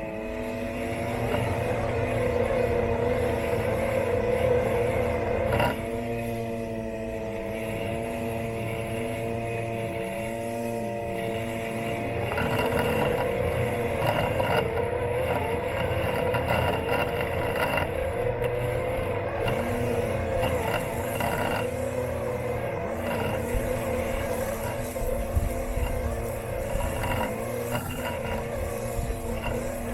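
Robot lawn mower's electric motors running with a steady whine of several tones whose pitch wavers slightly up and down as the load changes, over a low rumble, heard from a camera taped onto the mower's body.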